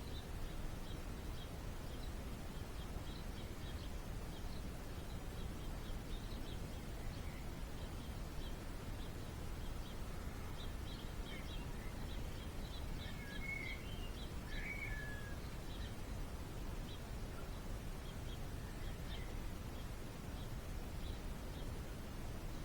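Small birds chirping: short high chips repeated throughout, with a few louder calls a little past the middle, over a steady low background rumble.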